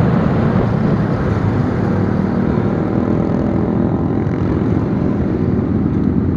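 Motorcycle engine running steadily while riding at speed, with wind rushing over the rider-mounted microphone.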